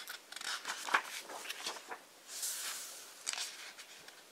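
Pages of a large hardcover book being turned by hand: soft paper rustles and small flicks, with a longer sliding rustle about two and a half seconds in.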